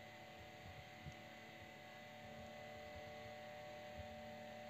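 Near silence: a steady electrical hum with a few faint, soft low knocks.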